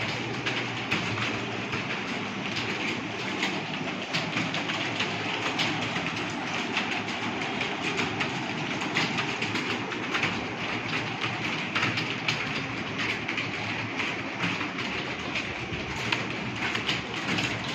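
Computer keyboards being typed on fast during a typing test: a continuous, irregular clatter of keystrokes, with a low steady hum underneath.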